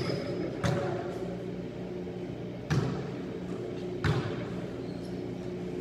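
Basketballs bouncing on a hard court in a large echoing hall: a few separate, irregular thuds, over a steady low hum.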